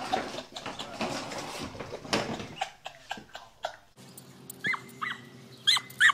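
Knocking and scraping clatter, then a dog yelping: four short, high-pitched cries in about a second and a half near the end.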